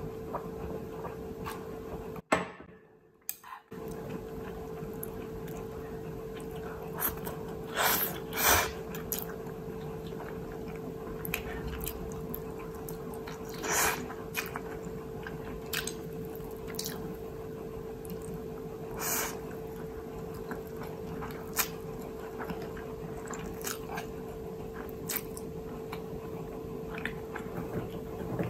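Close-up eating sounds of a person chewing and slurping Indomie Mi Goreng fried instant noodles with egg, with scattered short wet mouth sounds standing out now and then. A steady low hum runs underneath, and the sound drops out briefly about two seconds in.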